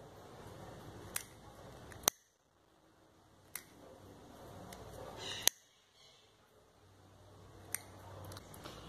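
A handheld lighter being struck and let go again and again, five sharp clicks with a soft hiss between them, its flame sealing the cut edges of a piece of felt.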